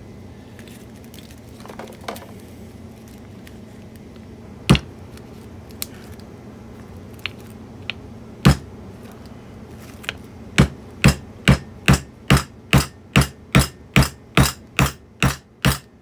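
Hammer blows driving a new oil seal into the lower-unit seal plate of a 1959 10 hp Evinrude outboard, where the seal would not go in on one side. There are two single strikes, then from about two-thirds of the way in a steady run of strikes at roughly two and a half a second.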